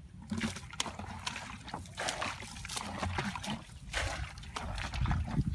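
Water pouring and splashing out of a tipped plastic bucket onto shallow muddy water, in several uneven splashes.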